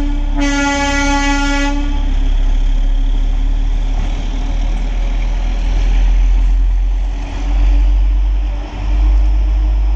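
Horn of an Indian Railways OHE inspection car sounding one short blast that cuts off under two seconds in, followed by a steady low rumble from the car's engine and wheels as it runs away along the track.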